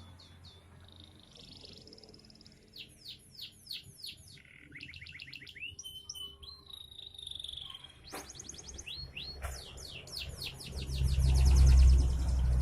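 Carrot-yellow domestic canary singing: fast trills of repeated chirps and quick downward-sweeping notes. A low rumble swells near the end and is the loudest sound there.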